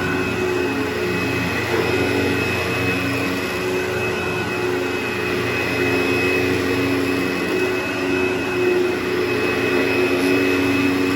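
Steady motor drone with a constant high whine and a lower hum that wavers in and out.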